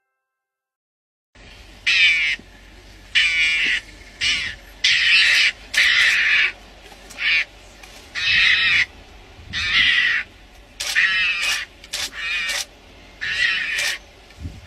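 After about a second and a half of silence, an animal gives a run of harsh, rasping calls, each under a second long, repeated roughly once a second.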